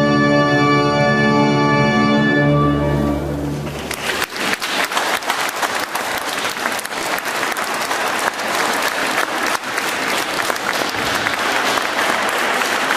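Orchestral church music with choir ends on a held final chord that dies away about four seconds in, and a congregation then applauds steadily.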